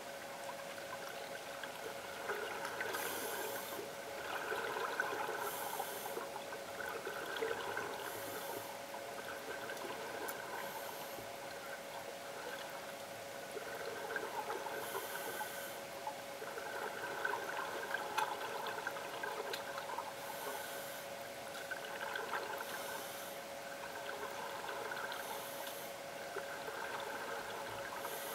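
Underwater scuba breathing through a regulator: bursts of exhaled bubbles every few seconds, with softer breathing hiss between them, over a steady hum.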